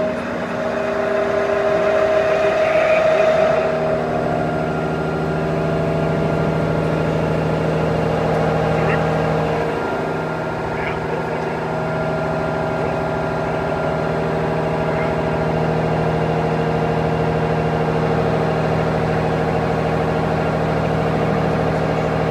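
MTE EM90 bed-type CNC milling machine cutting metal with a roughing end mill: the spindle and cut make a steady hum with several held tones, loudest a few seconds in.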